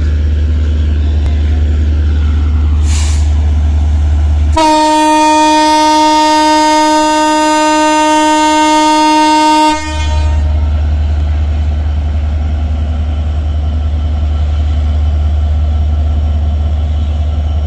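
Diesel locomotive running with a low, steady rumble as it pulls a passenger train slowly into the station. About four and a half seconds in it sounds one long horn blast, a single steady note lasting about five seconds.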